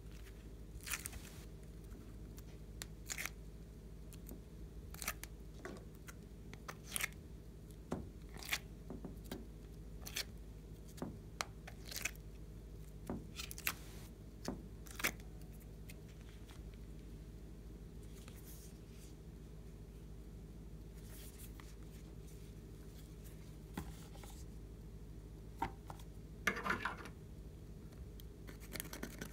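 Scattered light taps and clicks of hands handling slime-making materials and laying pieces of clay onto slime in a glass dish. Near the end comes a short scraping as the tips of small scissors scrape eyeshadow powder out of a palette.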